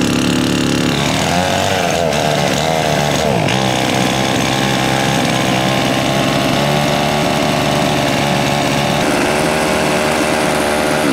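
Husqvarna 51 two-stroke chainsaw engine running, its speed wavering and dipping in the first few seconds before settling into a steady idle; the owner says it needs a little tuning. The sound cuts off suddenly at the end.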